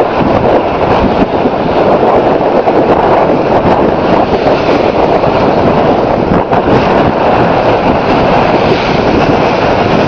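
Wind buffeting the microphone: a loud, continuous rushing roar with a rapid flutter, perhaps with surf mixed in underneath.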